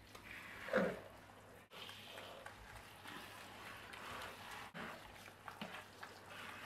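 Water from a hand-held shower head spraying and trickling onto a micro pig and the shower tray, with a short vocal sound about a second in.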